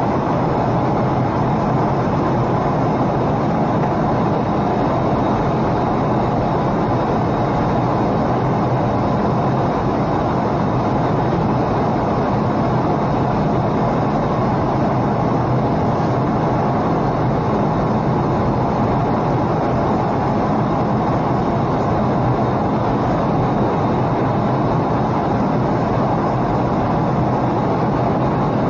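Steady cabin noise of a jet airliner in flight, heard inside the cabin at a window seat: the even rush of turbofan engines and airflow, with a faint steady high whine over it and no change.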